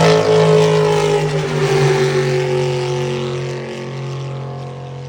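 Racing motorboat engine running at high revs as the boat passes and draws away, its pitch dropping a little and the sound fading steadily.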